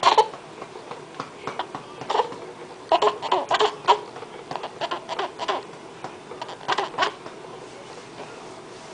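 Short bursts of a person's voice, some clustered together, scattered over the first seven seconds, then only quiet room sound.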